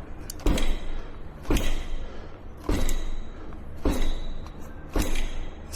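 Rattling knocks from the rear wheel area of a Segway GT3 Pro electric scooter: five sharp clunks, about one a second, each followed by a brief rattle. It is the sign of something loose inside, which the owner suspects is in the rear hub motor or the deck.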